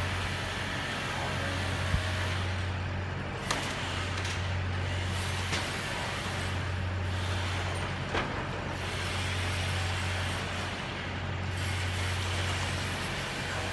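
Engine of a heavy long-boom machine running steadily under load, its low drone swelling and easing every few seconds. A few sharp knocks sound over it.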